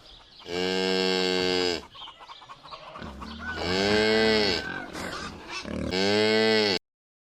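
Cow mooing three times, each a long, drawn-out moo of about a second or more.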